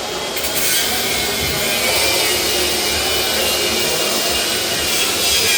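Angle grinder cutting into a metal security gate: a harsh, steady grinding hiss with a high whine that starts about half a second in and keeps going.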